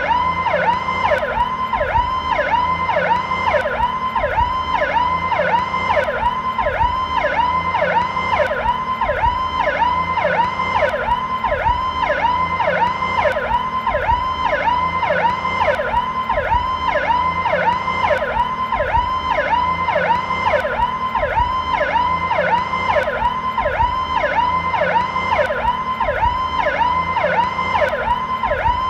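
Federal Signal PowerCall electronic police siren, in its slowed version, sounding continuously as a rapidly repeating up-and-down sweep, about two sweeps a second.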